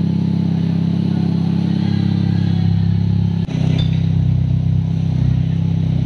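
Exhaust of a 1993 Toyota Corolla running at idle through an HKS Black Titanium aftermarket muffler, a steady low drone. The note dips briefly and shifts about three and a half seconds in.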